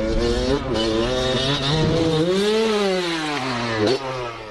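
Dirt bike engine revving, its pitch wavering with the throttle, then climbing and falling away in one long sweep about two seconds in.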